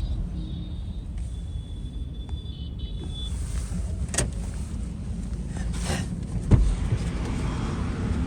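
Steady low motor-vehicle rumble, with a thin high tone over the first three seconds and a few sharp knocks, the loudest about six and a half seconds in.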